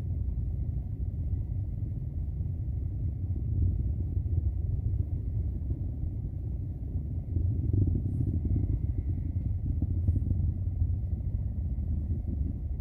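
Low, steady, crackling rumble of a SpaceX rocket launch.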